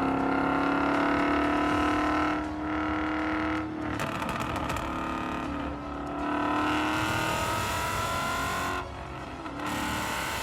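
2014 Ford Mustang GT's 5.0-litre V8 accelerating. Its pitch climbs steadily and drops back several times as it shifts up through the gears.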